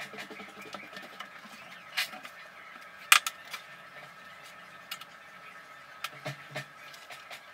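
Scattered clicks and knocks of cut tile and pebble tile being handled and set down on the floor, with a sharp clack about three seconds in.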